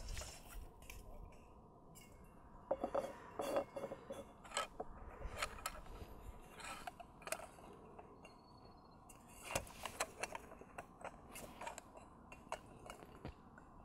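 Light metal clinks, taps and knocks, scattered and irregular, from the Fire Maple X3 cook set's pot and stove parts being handled and fitted together.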